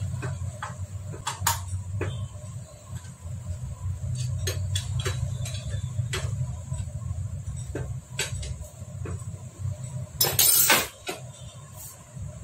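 Metal tools clinking and tapping against a Hero Splendor Plus motorcycle engine's crankcase during engine assembly, in scattered sharp clicks over a steady low hum. About ten seconds in comes a louder, longer metallic rattle.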